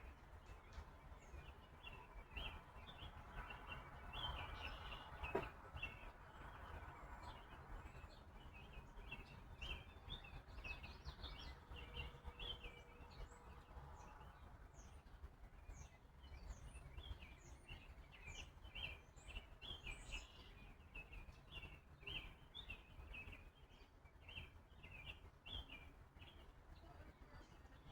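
Faint chirping of small birds, many short calls in quick succession throughout, over a steady low rumble, with a single sharp click about five seconds in.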